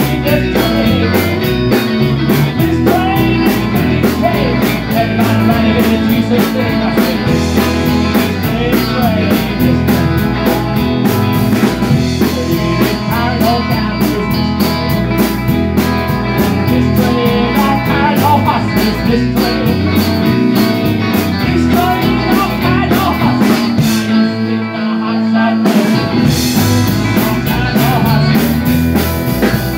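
Live blues-rock band playing: electric guitars and a drum kit, with a vocalist singing into a microphone. About four-fifths of the way through, the drums and low end drop out for a moment before the band comes back in.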